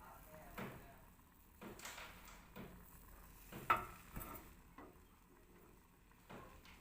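Light, irregular clicks and knocks of kitchen utensils being handled, about eight taps spread unevenly, with one louder knock a little past halfway.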